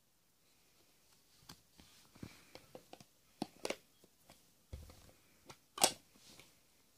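Light clicks and taps of cards and a clear plastic deck box being handled, with one louder, sharp plastic click near the end.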